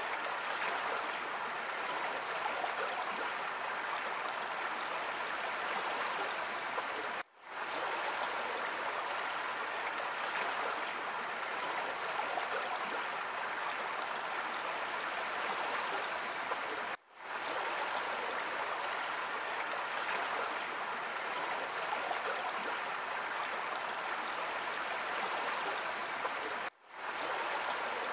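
Steady rush of a flowing stream. It cuts out suddenly for a moment three times, about every ten seconds, and fades straight back in.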